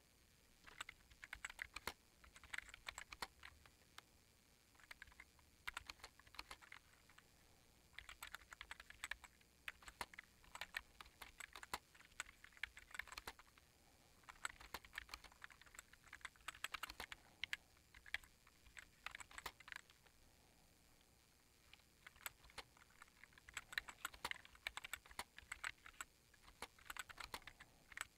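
Typing on an old iMac keyboard: quick runs of key clacks, broken by short pauses every few seconds.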